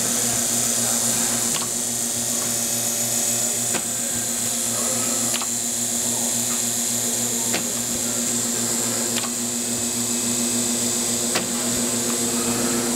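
Sheet-fed laminating machine with an automatic feeder running: a steady hum and hiss, with a sharp click about every two seconds.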